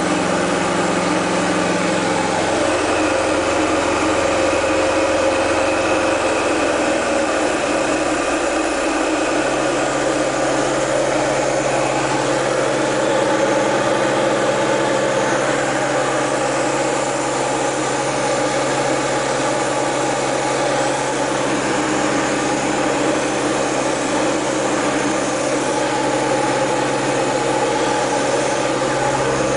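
Cabin sound of a Diamond DA-20 Eclipse's four-cylinder Continental piston engine and propeller in cruise: a loud, steady drone with air rush. Between about three and nine seconds in, the low engine note shifts down in pitch, then holds steady.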